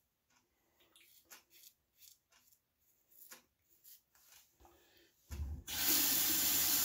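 Faint scratching and rubbing as fingers wipe shaving lather from around the ear. About five seconds in, a tap starts running into the sink, much louder.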